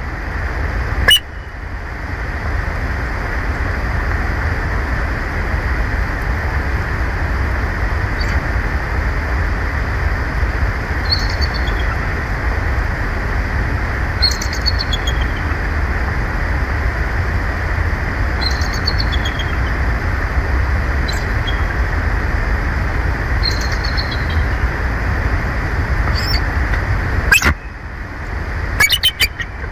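Bald eagle calling: a few loud, sharp calls near the start and again near the end, with fainter short descending chirps every few seconds in between. A steady hiss runs underneath.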